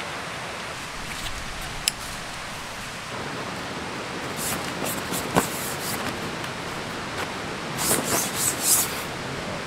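Nylon tent fabric rustling in short bursts, with a sharp click and a knock, as a person handles a dome tent and steps into it. The loudest rustling comes near the end. A steady rushing noise runs underneath.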